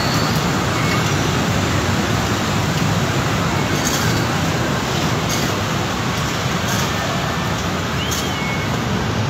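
Steady city street traffic noise, an even rush of passing vehicles with a few faint clicks.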